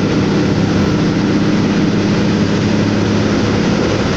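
Truck's diesel engine running steadily, heard inside the cab as a low drone, under a hiss of tyres on the rain-soaked road.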